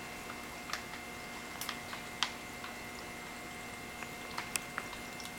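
Wine siphoning through a hose into a plastic wine-on-tap bag: a faint steady flow, with scattered small clicks and crinkles from the plastic bag being held.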